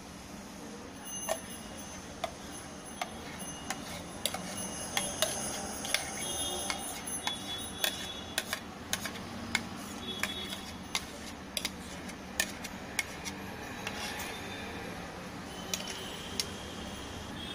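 Plastic spatula scraping and tapping inside a steel mixer jar as thick ice cream mixture is poured out into a plastic box: a long string of irregular light clicks and knocks.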